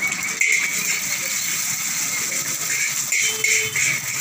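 Egg and shredded vegetables sizzling in a hot iron wok. Near the end, a metal spatula scrapes and clatters against the pan as the egg is scrambled.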